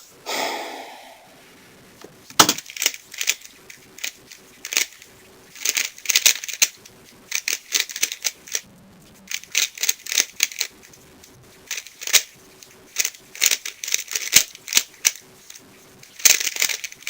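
Dayan Guhong 3x3 speedcube being turned fast during a timed solve: a sharp knock about two seconds in, then rapid plastic clicking and clacking of the layers in quick flurries broken by short pauses.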